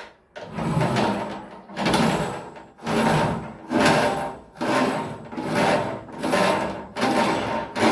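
A blocked toilet drain being worked with about eight rhythmic strokes, roughly one a second, each a rasping, rubbing push.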